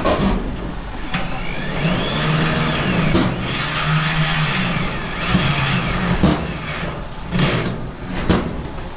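Power screw gun or drill running in bursts on the metal awning trim, its pitch rising and falling as it speeds up and slows, with about five sharp knocks in between.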